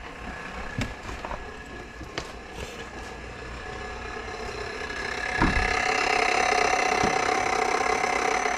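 A few faint clicks, then a thump about five seconds in, followed by a steady electric whirring hum as something in the car's electrical system powers up; the engine itself does not start.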